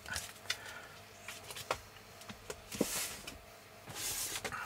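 Laserdisc jackets in clear plastic sleeves being handled and set aside: scattered light clicks and taps, with two brief swishes of sliding plastic about three and four seconds in.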